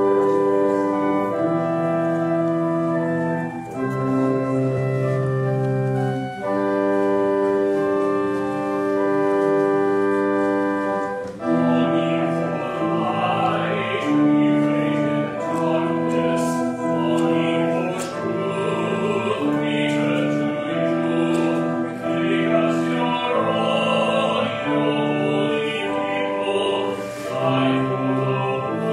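Organ playing a hymn in slow, sustained chords; about eleven seconds in, voices join and sing along with the organ.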